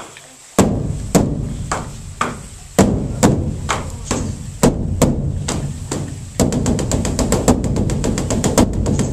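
Large Korean Buddhist dharma drum (beopgo) beaten with two wooden sticks: deep, evenly spaced strikes about two a second, then from about six seconds in a fast, dense run of strikes.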